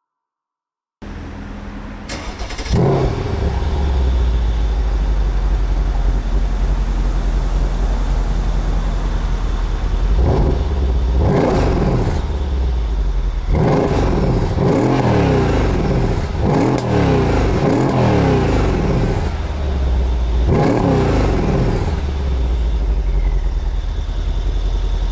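Mercedes E63 AMG twin-turbo V8 heard at the exhaust tips: it fires up with a flare about three seconds in and settles into a deep idle. From about ten seconds in it is revved again and again, each rev rising and falling.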